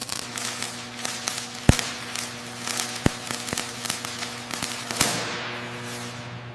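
Irregular sharp clicks and crackles over a steady low hum, with two louder knocks about a second and a half apart in the first half.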